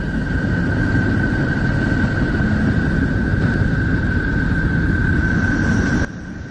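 Space-ambience sound presented as Neptune's sound: a steady low windy rumble with one constant high tone over it, dropping to a quieter rumble about six seconds in.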